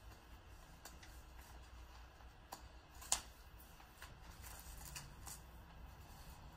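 Quiet room with scattered small clicks and light paper-handling sounds from pens and paper as people write at a table; one sharper click stands out about three seconds in.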